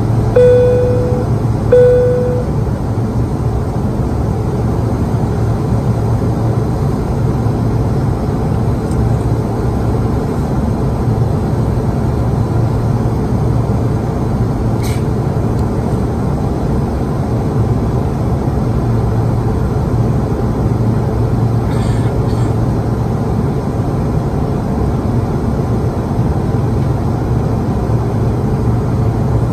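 Steady cabin noise of a Bombardier CRJ-200 in its climb: the constant hum of its rear-mounted GE CF34 turbofans and airflow heard from inside the passenger cabin. Near the start, two short electronic cabin chime tones at the same pitch sound about a second apart.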